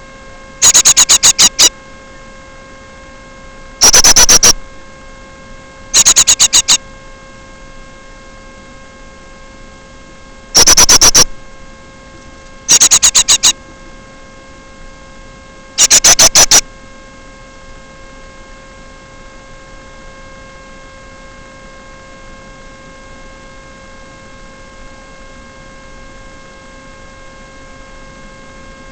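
Six short, rapid bursts of high-pitched bird calls right against the microphone, loud enough to distort, over a steady electrical hum from the recording equipment.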